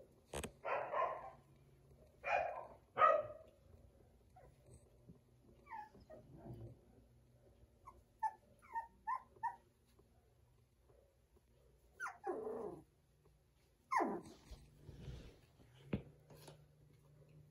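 Young puppies, about four and a half weeks old, barking and yipping as they play: a few short barks at the start, a quick run of four small high yips about eight seconds in, and more barks about twelve and fourteen seconds in. A sharp click comes near the end.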